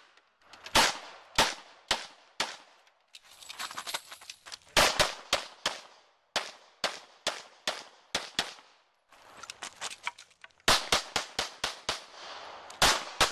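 Semi-automatic pistol firing rapid strings of shots, with short gaps between the strings; the quickest run of shots comes near the end.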